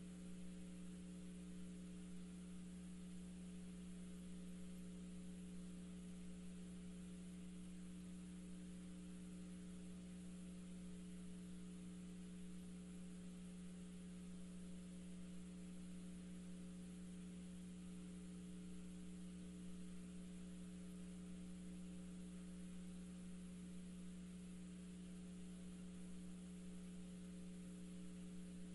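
Steady low electrical hum with a few fainter tones above it and a faint hiss, unchanged throughout: line noise on the broadcast audio feed, with no sound from the track coming through.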